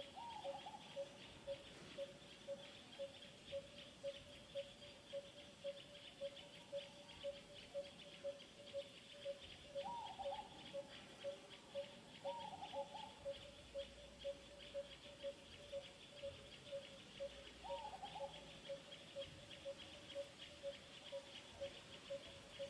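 Outdoor animal ambience: a single low note repeats steadily about twice a second throughout, over a continuous high, fast chirring. Four short falling squeaks come through: one about a second in, two close together a little before the middle, and one later on.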